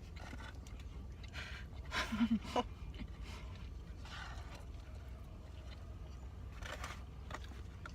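Someone chewing a mouthful of chicken sandwich, with small rustling noises, over a low steady rumble inside a car.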